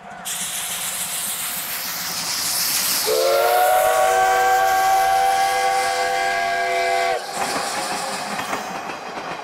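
Steam-hauled passenger train passing with a steady hiss of steam and running noise. About three seconds in, the steam locomotive gives one long whistle blast of about four seconds, several tones sounding together, which cuts off sharply. The coaches then run on past on the rails.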